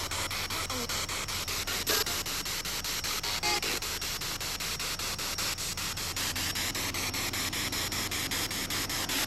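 SB7 spirit box sweeping through radio stations: a steady hiss of static chopped into rapid, evenly spaced pulses, with a brief pitched snatch of radio sound about three and a half seconds in.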